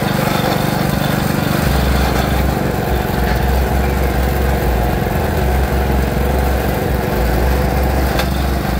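Sugarcane juice crushing machine running steadily with a loud, low mechanical drone while pressing cane.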